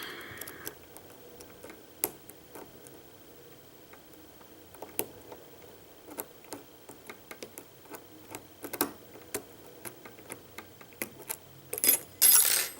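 Small metallic clicks and ticks of a lock pick working the pins of a Euro cylinder lock under a tension wrench, irregular and scattered, with a louder, denser scraping rattle of metal near the end.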